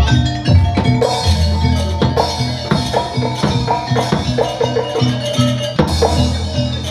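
Music with a steady beat of drums and percussion over a repeating bass line and struck melodic notes.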